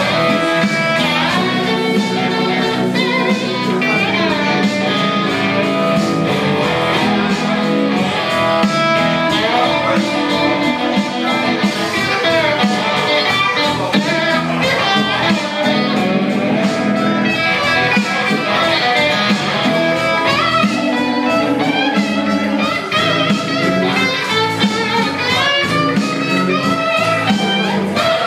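Blues rock played live: a guitar lead with gliding, bending notes over a steady backing of bass and drums.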